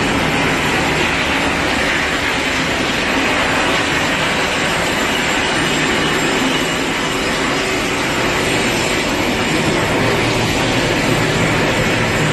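Steady rumbling noise of a ship's machinery, with a faint low hum running under it.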